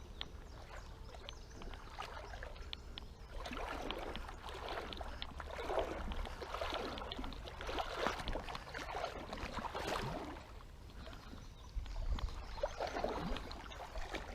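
Creek water sloshing and splashing in uneven surges, strongest from about three to ten seconds in and again near the end, over a steady low rumble.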